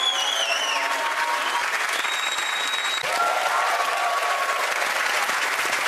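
Studio audience applauding steadily, with a few whistles over the clapping.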